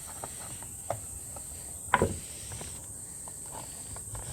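Small clicks of plastic clips on a Holden Commodore instrument cluster being pressed and pried, with one sharp snap about two seconds in as a clip lets go.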